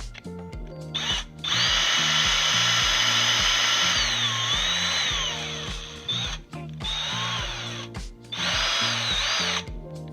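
Electric drill running in three bursts while enlarging a hole in a plastic door-handle lever. The first run lasts about three seconds and its whine drops as the motor slows, then comes a short blip, then a run of about a second near the end. Background music with a steady beat plays underneath.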